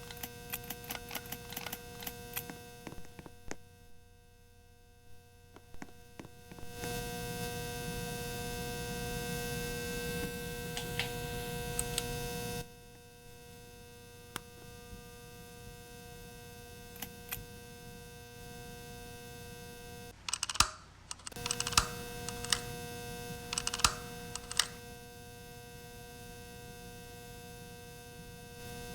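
Ceiling fan running with a steady electrical hum and irregular sharp clicks and ticks. The sound gets louder about seven seconds in and drops back near the middle, with a brief cluster of louder clicks about two-thirds of the way through.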